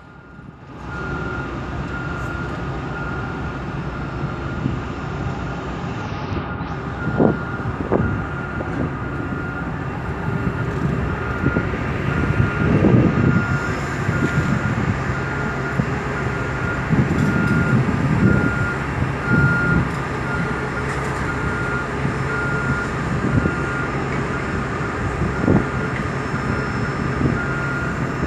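Evenly spaced high electronic beeps repeating steadily over a continuous mechanical rumble, with a few scattered knocks.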